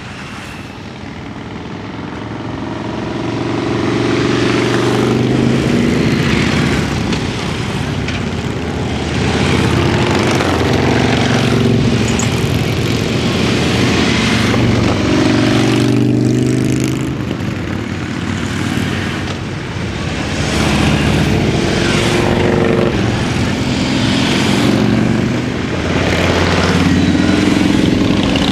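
A procession of cruiser and touring motorcycles riding past one after another at low speed. Each engine's note swells and fades as the bike goes by, with several passes overlapping.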